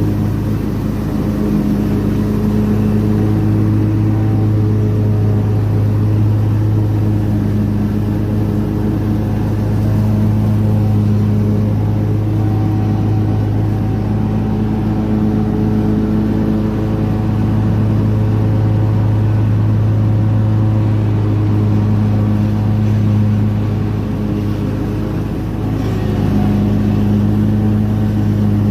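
Ride-on lawn mower engine running steadily at a constant speed, with a brief slight dip in level near the end.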